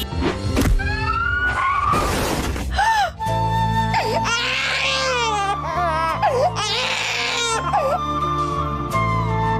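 Sad background music with sustained notes, with a wailing, crying-like voice gliding up and down over it in the middle.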